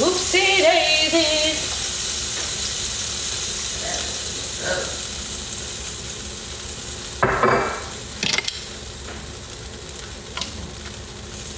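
Food sizzling in a pan on the stove, a steady hiss that slowly fades, with a utensil clattering against the pot twice, about seven and eight seconds in.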